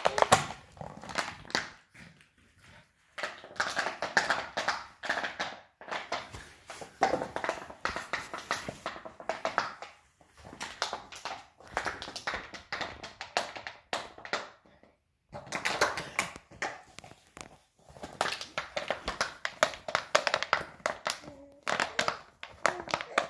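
A dog chewing on a bottle: irregular runs of crackling clicks and taps, broken by brief pauses.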